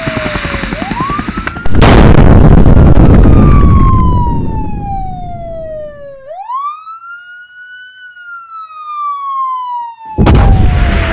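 Police siren wailing in slow falling and rising sweeps. A loud explosion goes off about two seconds in and fades away over a few seconds, and a second blast hits near the end.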